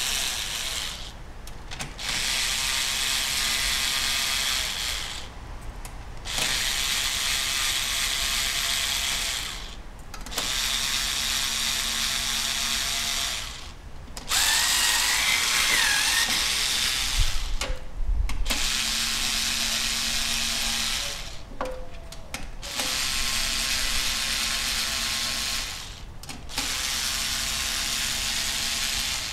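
Cordless drill-driver running in repeated bursts of about three seconds with short pauses between them, backing screws out of the Prius hybrid battery pack's module frame.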